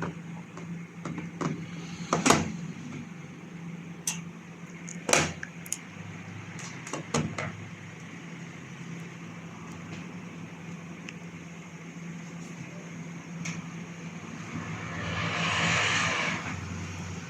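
Opened microwave oven running, its cooling fan motor giving a steady hum, with a few sharp knocks in the first half and a short rushing hiss that swells and fades near the end.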